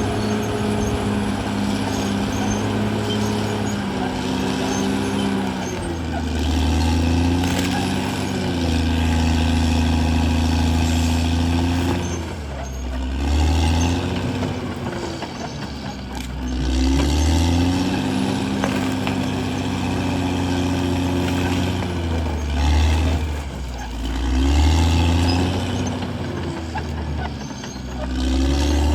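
Diesel engine of a CAT D6R XL crawler bulldozer working, its engine speed rising and dropping back every few seconds.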